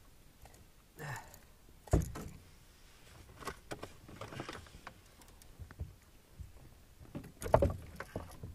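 Scattered knocks and clatters of a landing net and fishing tackle against a canoe as a fish is netted and brought aboard, with the loudest knock about two seconds in and another near the end.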